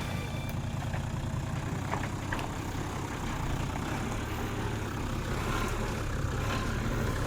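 Four-wheel-drive's engine running steadily at low revs as the vehicle crawls slowly over a rocky track.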